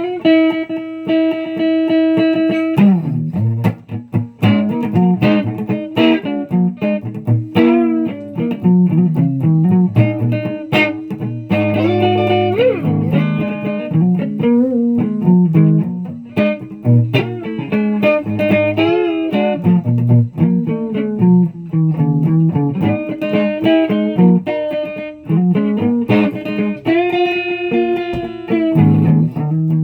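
Electric guitar playing, with many quickly picked notes, held notes and pitch bends over a bass line.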